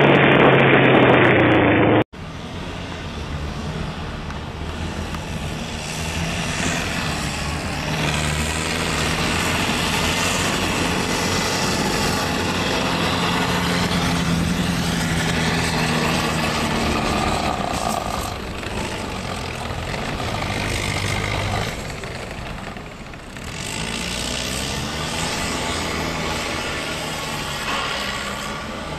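Engine of a tracked over-snow vehicle running, its pitch rising and falling with the throttle as it drives. A louder, duller sound in the first two seconds cuts off abruptly.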